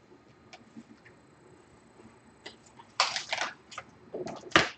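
Handling noises at a repair bench: light clicks, then two short bursts of clattering knocks as laptop parts and tools are picked up and set down during MacBook Pro reassembly, the sharpest knock coming near the end.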